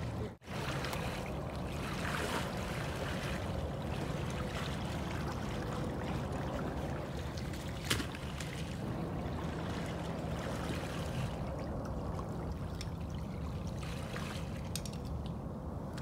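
Water sloshing and swishing steadily as a hunter in waders wades through knee- to thigh-deep flooded timber, with one sharp click about eight seconds in.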